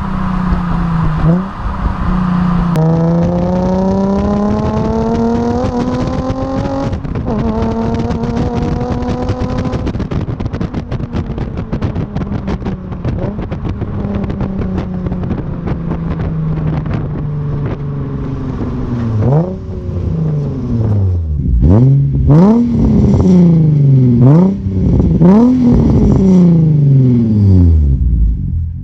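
Nissan 350Z V6 through an Invidia Gemini cat-back exhaust, pulling with rising pitch, then running steadily. From about two-thirds of the way in it is revved in a series of sharp blips, each rising and falling quickly.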